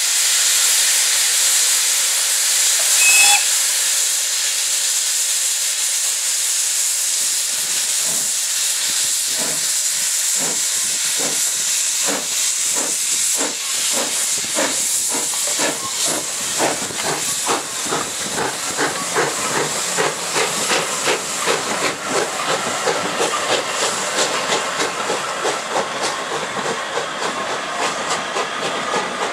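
LBSCR E4 0-6-2T tank locomotive B473 blowing off steam with a steady hiss, giving a brief whistle about three seconds in, then starting away with slow exhaust beats that quicken as it gathers speed.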